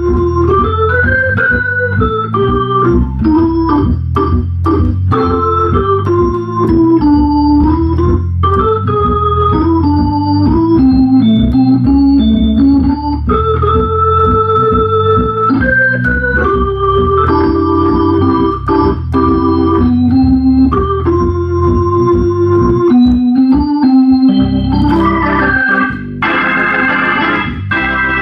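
Hammond B3 tonewheel organ played with both hands: a moving single-note melody on the upper manual over a steady low accompaniment on the lower manual. About 26 seconds in, the sound breaks off briefly, then a full sustained chord follows.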